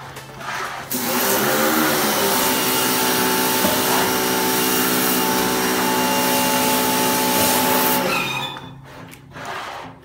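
Pressure washer motor running with a steady whine and spray hiss. The motor starts up about a second in, then winds down and stops just after eight seconds, with a second start-up right at the end.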